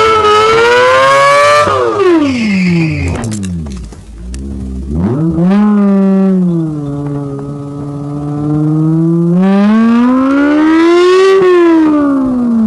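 Honda S2000's inline-four engine with an F1 exhaust, heard from inside the car, wailing high under acceleration. The revs drop away over the first few seconds, pick up again about five seconds in and hold steady, then climb to a high peak near the end and fall as the throttle is lifted.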